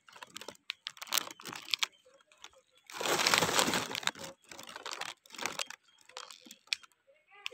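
Leaves and twigs of a katuday (Sesbania grandiflora) tree rustling and crackling as its pink flowers are picked by hand, in irregular scrapes and small snaps. A louder rustle about three seconds in lasts about a second.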